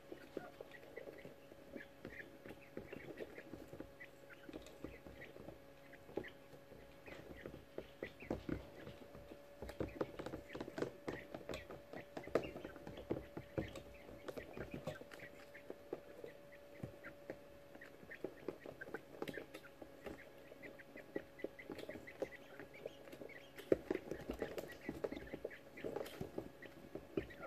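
Young coturnix quail chicks chittering and shuffling about in wood shavings: frequent small clicks and rustles with soft, short chirps, over a faint steady hum.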